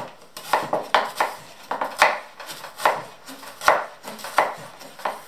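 Chef's knife slicing a red onion into thin rings on a wooden cutting board, the blade knocking on the board about twice a second: quite a racket.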